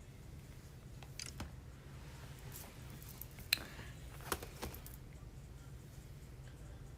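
A few short, light clicks or taps over a low steady hum.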